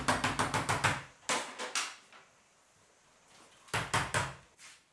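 Fast run of sharp knocks for about a second, then two separate knocks, a pause, and two or three more, as the conservatory's internal eaves cover trim is fitted by hand overhead.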